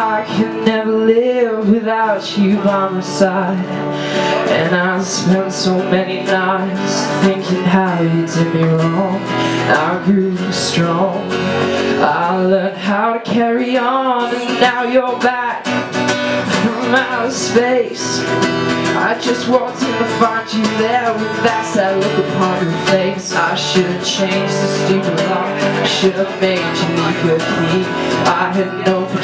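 Live acoustic guitar strummed steadily, with a woman singing over it.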